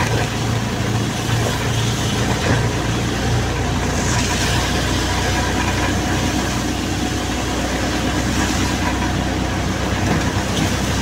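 Auto-rickshaw's small engine running steadily, heard from inside the open cab, its note changing about three seconds in, over a steady hiss from the rain-soaked road.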